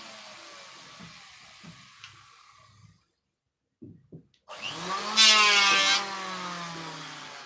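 Electric woodworking power tool coasting down with a slowly falling whine that fades out. After a short silence it spins up again with a rising whine, runs loudest for about a second, and is switched off, its whine falling as it coasts down.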